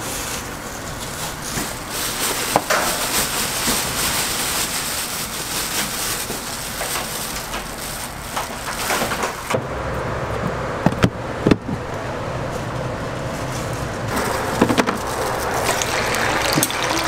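Food-stall kitchen noise: gloved hands rustling through shredded cabbage and sliced onion, with a few sharp utensil clicks about eleven seconds in. In the last few seconds the breaded patties sizzle on the flat steel griddle.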